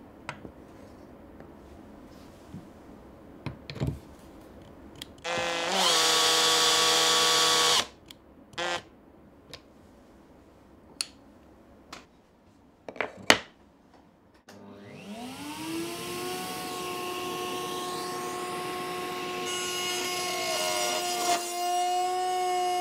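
Table-mounted router: a brief loud burst of motor noise, a few clicks and knocks, then the motor spins up with a rising whine and runs steadily at full speed.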